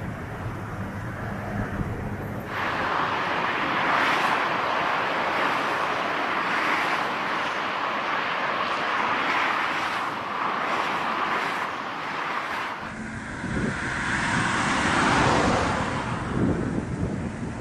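Jet airliner landing noise mixed with wind buffeting the microphone: a steady rushing that grows louder about two and a half seconds in. About thirteen seconds in it cuts to another recording of the same kind.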